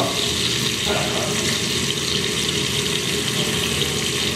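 Thin slices of goose breast searing in hot butter and garlic in a frying pan: a steady sizzle.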